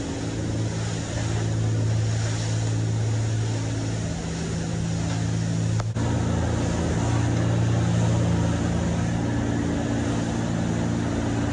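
Caribbean 35 gameboat's twin diesel engines running underway with a steady low drone, over the rush of wind and spray as the hull runs through chop. The sound changes abruptly about six seconds in.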